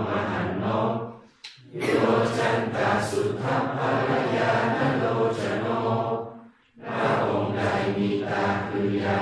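A Buddhist congregation chanting together in unison in the Thai morning chanting service, reciting in a steady measured cadence. The chant breaks off twice for a breath, about a second in and about six seconds in.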